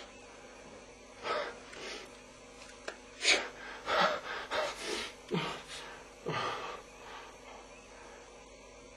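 A man's breathy vocal sounds without words, gasps and snorts, in a string of about a dozen short bursts that stop about seven seconds in.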